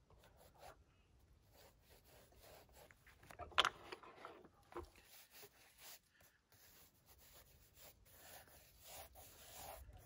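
A pencil sketching on a large drawing pad: faint, irregular scratchy strokes across the paper, with one louder stroke about three and a half seconds in.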